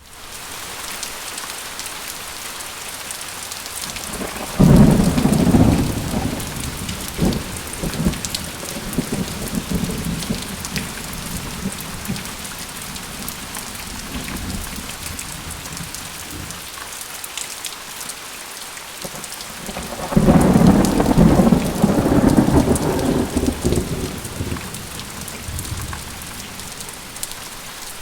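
Steady heavy rain hissing, with two loud rolls of thunder: one cracks in about four seconds in and rumbles away over several seconds, and a second, longer roll comes about two-thirds of the way through.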